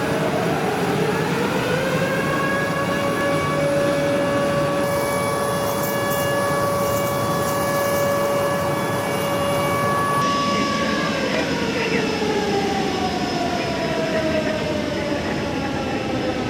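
The whine and roar of a C-17 Globemaster III's turbofan engines. The whine rises in pitch over the first couple of seconds, holds steady, then falls away over the last few seconds as the engines spool down.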